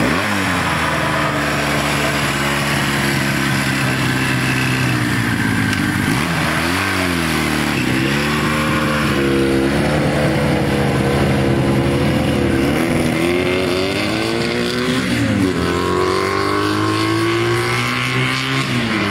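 1966 Honda CL160 parallel-twin motorcycle engine running as the bike is ridden off, revving up and dropping back several times.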